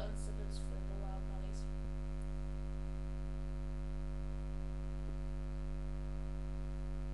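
Steady electrical mains hum with a stack of overtones, picked up in the recording. A few faint clicks fall within the first two seconds.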